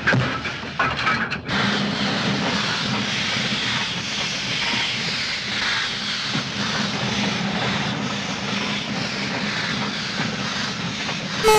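Steam locomotive running, with a steady hiss of steam. A few knocks come in the first second and a half, and a short rising tone breaks in right at the end.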